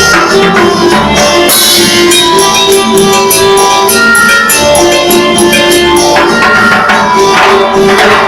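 Live music from an electronic keyboard with drums, played loud: held keyboard notes over a steady beat of crisp high percussion strokes.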